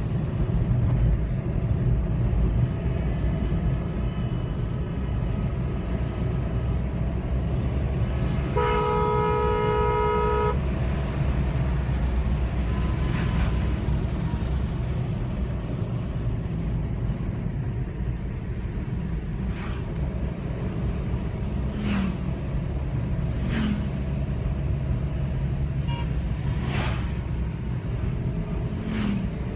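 Steady low rumble of a car's engine and tyres on asphalt, heard from inside the cabin. About nine seconds in, a car horn sounds once for about two seconds, and several short sharp knocks come in the second half.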